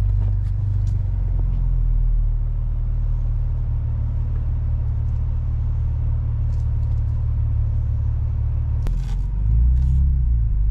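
Toyota pickup running at low speed, heard from inside the cab as a steady low rumble while reversing. A sharp click comes near the end, after which the rumble grows louder.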